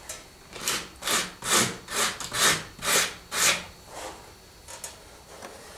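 About seven rasping back-and-forth strokes of a hand tool on a hard material, about two a second, stopping about three and a half seconds in.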